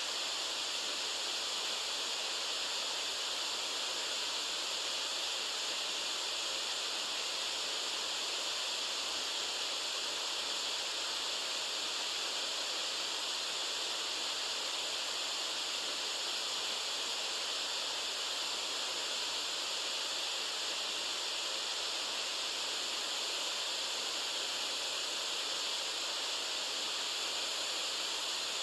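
White noise for sleep: an even, unchanging hiss with little bass.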